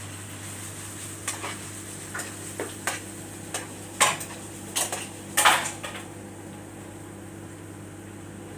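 Metal tongs clinking and scraping against a frying pan and metal trays as cooked chicken strips are lifted out: a run of sharp clinks in the first six seconds, the loudest about four and five and a half seconds in. A steady low hum runs underneath.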